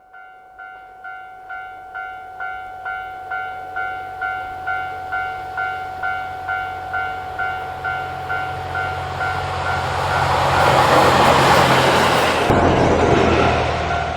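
Railway level-crossing warning bell ringing about twice a second, growing louder over the first few seconds. From about ten seconds in, a diesel train rushes past over it, loudest just before the passing noise drops off abruptly near the end, while the bell keeps ringing.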